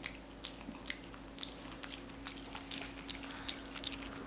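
Capuchin monkey chewing a mouthful of spaghetti, with wet lip-smacking clicks coming quickly and unevenly.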